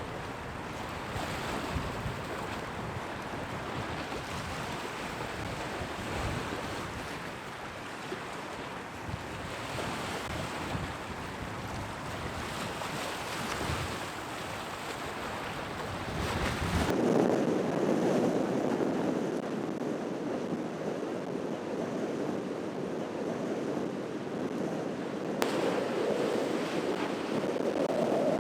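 Storm-force wind buffeting the microphone over waves crashing on the seafront. About 17 s in the sound changes abruptly to a louder, steadier rush of wind and surf with the low buffeting gone.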